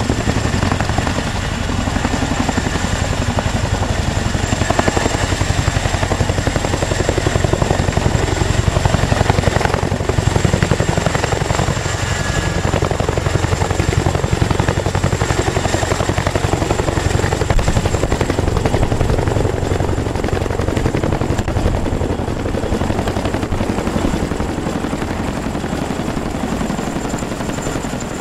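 CH-47 Chinook tandem-rotor helicopter coming in and hovering low overhead: the rapid, steady beating of its two rotors with a thin high whine over it, growing a little louder a few seconds in as it closes.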